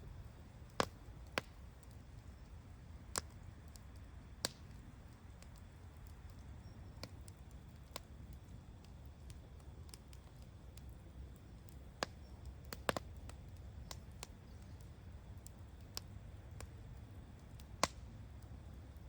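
Wood campfire crackling: sharp, irregular pops and snaps from the burning wood, a few seconds apart, over a low steady rumble of the fire.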